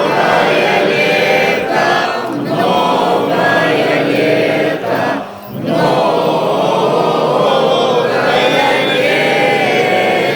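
Group of voices singing an unaccompanied Orthodox church chant, in long held phrases with a short break for breath about five seconds in.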